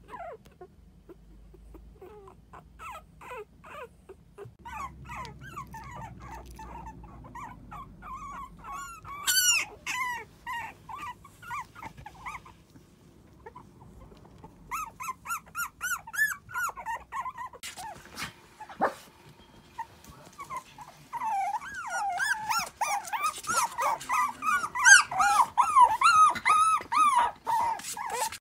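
Toy poodle puppies whimpering and squeaking in runs of short, high, wavering cries, the calls that bring their mother to them. The cries come in clusters, get denser and louder toward the end, and a single knock sounds about two-thirds of the way through.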